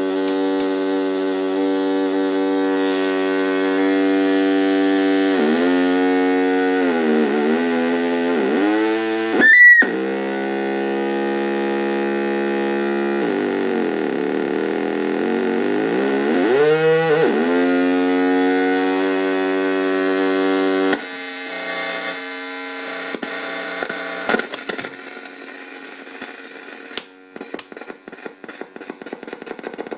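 Homemade NAND-gate square-wave synthesizer playing through its own small speaker: a steady buzzy drone that swoops down in pitch and back up several times, with a sharp high squeal about ten seconds in. About two-thirds through it drops to a quieter crackling, sputtering clicking.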